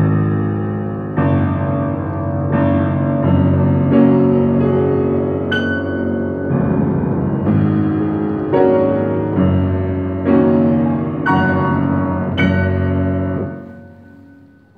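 Old, out-of-tune upright piano played in full chords, struck about once a second and left to ring. Near the end the last chord dies away.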